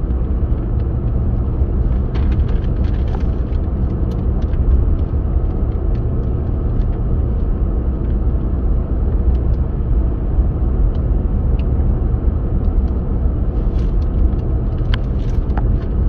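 Steady road and engine noise of a moving car, heard from inside the cabin: an even low rumble that does not change.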